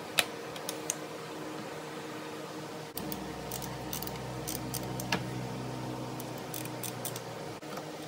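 Light clicks and taps of metal fittings and hand tools being handled while engine parts are reconnected, with one sharper click just after the start and a scatter of small taps in the second half, over a steady background hum. A deeper hum joins about three seconds in and stops abruptly near the end.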